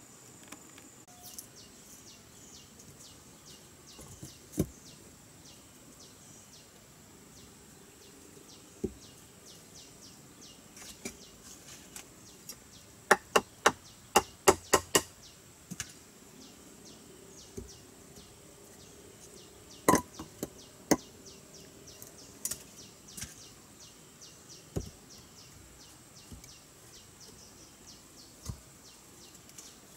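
Peeled wooden logs knocking against one another as they are set into a log wall: scattered single knocks, with a quick run of about six sharp knocks about halfway through. A steady high insect drone continues behind.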